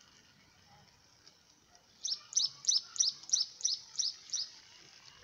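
A bird calling: a quick run of about eight sharp, high chirps, each falling in pitch, about three a second, starting some two seconds in.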